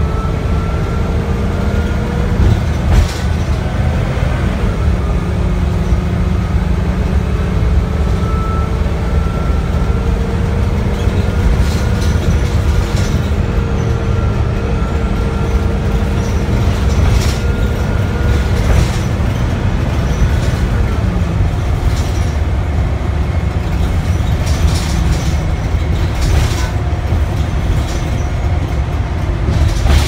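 Cabin ride noise of a 2006 Blue Bird Ultra LF CNG transit bus under way: its Cummins Westport natural-gas drivetrain gives a steady low drone with a faint whine that slowly rises and falls. Scattered short rattles and knocks from the body come through, the sharpest about three seconds in.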